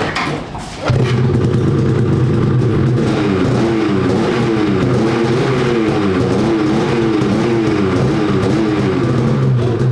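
Polaris 850 Patriot two-stroke snowmobile engine, fitted with a GGB Trail can exhaust, catching about a second in and then running loudly while the throttle is blipped, the pitch rising and falling over and over.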